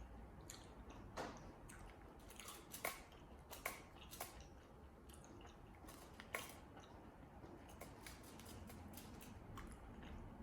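Faint close-up chewing and mouth sounds of a person eating, with scattered crisp clicks, a few of them louder.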